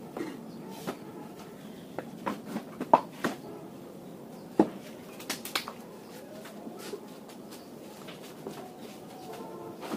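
Bricks being set down by hand around a brooder ring, giving scattered knocks and clacks, the sharpest about three seconds in and again a little after four and a half seconds.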